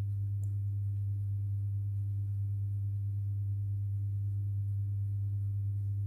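Steady low electrical hum from a powered induction-coil heater circuit and its power supply, running while it heats water in the steel tube.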